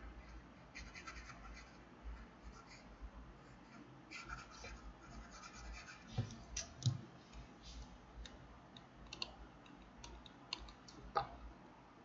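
Faint scratching of a stylus on a drawing tablet, with scattered light clicks, as handwritten digital ink is erased.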